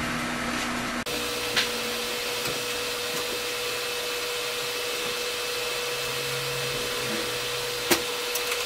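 Steady whirring noise of the running off-grid inverter and power-room equipment, with a steady electrical whine that joins about a second in. A few light clicks come from handling the cables at the breaker.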